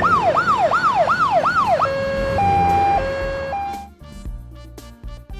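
Emergency siren sound effect: about five fast rising-and-falling yelp sweeps, then a two-tone hi-lo wail alternating between two steady pitches. It gives way to bouncy children's music about four seconds in.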